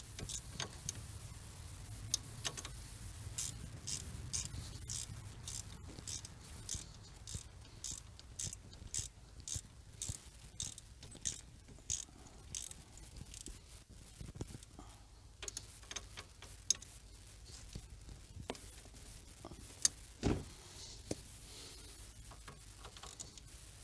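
Hand ratchet wrench clicking in quick runs of strokes as a bolt is turned, with a short pause partway through and a single dull knock near the end.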